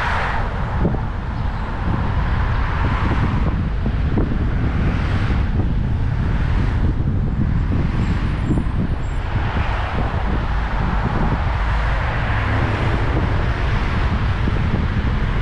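Wind buffeting a GoPro mounted on the roof of a moving Honda Odyssey minivan, over a steady low rumble of road and traffic noise. The wind rush swells and eases every couple of seconds.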